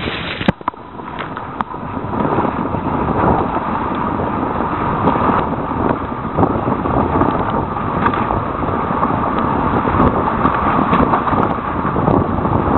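Wind buffeting the microphone over the rush and hiss of water along a sailing catamaran's hull as it cuts through the sea. There is a sharp click about half a second in and a brief drop in the noise, which then builds back up and holds steady.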